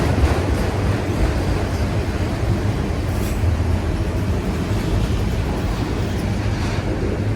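Empty autorack freight cars rolling past, a steady rumble of steel wheels on rail.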